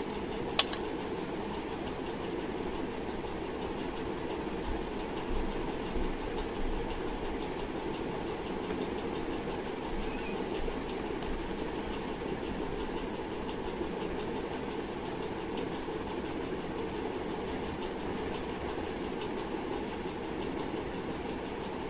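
A steady, even hum of background noise with no distinct events, apart from a single click about half a second in.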